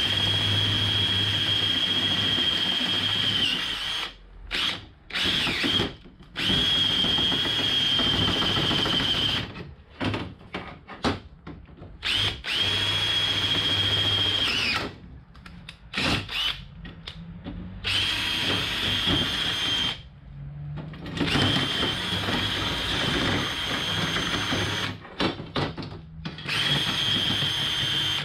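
Makita LXT cordless drill boring holes through an aluminium bar, running in repeated bursts of one to four seconds with a steady high whine, stopping and starting again several times.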